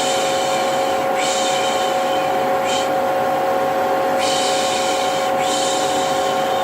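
Vacuum cleaner running with a steady whine and rush, overlaid with repeated 'shh' shushing sounds, each about a second long with short breaks between them.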